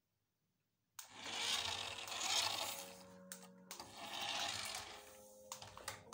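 Small electric motor and gears of a remote-control toy car whirring in bursts as it is driven, starting about a second in.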